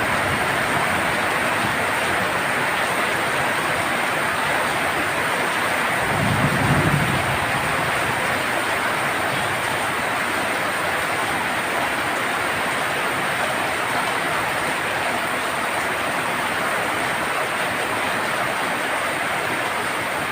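Heavy rain drumming steadily on a tin roof, with a brief low rumble of thunder about six seconds in.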